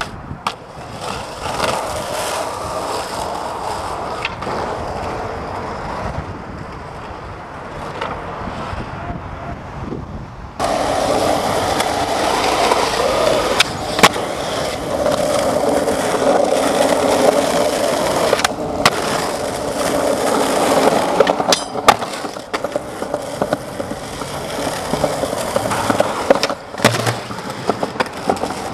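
Skateboard wheels rolling on concrete and asphalt, with several sharp clacks of the board hitting the ground. The rolling gets louder and rougher about ten seconds in.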